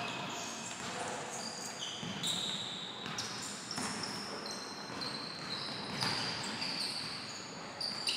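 Basketball game on a hardwood court: sneakers squeak in short high-pitched chirps again and again, and a basketball is dribbled with a few sharp knocks.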